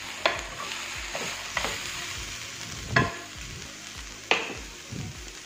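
Sliced vegetables (green beans, carrot, capsicum, mushroom) sizzling in oil in a wok, already sautéed. A spatula stirs them, scraping and knocking against the pan about four times.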